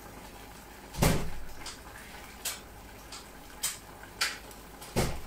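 Kitchen utensils knocking and clinking against a copper saucepan while pasta e patate is stirred: a heavy knock about a second in, a few light clicks, and another heavy knock near the end.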